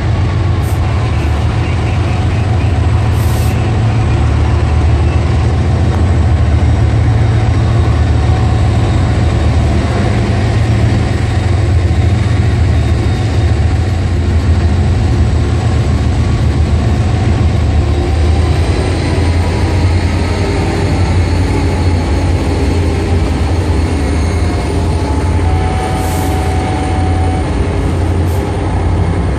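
Several Norfolk Southern diesel-electric locomotives passing close by at the head of a freight train, their engines running with a deep, steady rumble along with wheel and rail noise.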